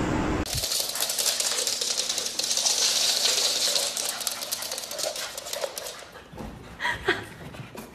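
French bulldog puppy scampering across a hardwood floor, its claws clicking and scrabbling rapidly for several seconds, then going quieter about six seconds in. A short high-pitched sound comes near the end.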